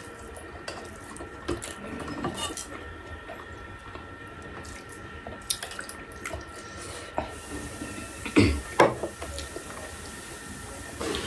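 Eating sounds at a table: fingers mixing rice on steel plates with light clinks, and a splash of dal poured from a bowl onto the rice. There are two louder knocks near the end.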